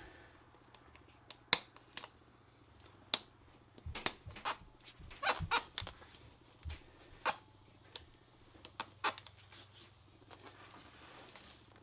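Scattered sharp clicks and light knocks, about a dozen at irregular intervals, from tools and a motorcycle tire being handled while its bead is being set, over a faint low steady hum.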